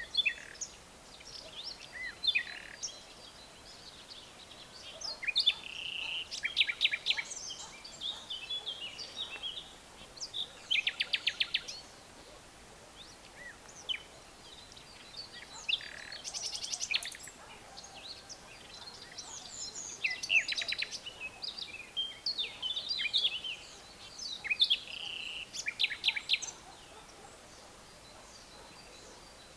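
Several songbirds chirping and calling in overlapping bursts, with rapid trills of evenly repeated notes about 11 and 21 seconds in, over a faint steady hiss.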